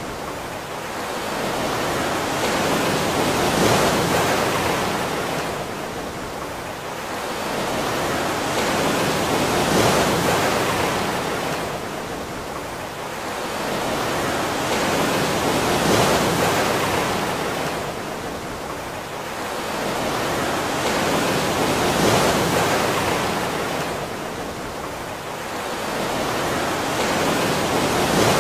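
Rushing water, a broad even hiss that swells and fades about every six seconds, like surf washing in and drawing back.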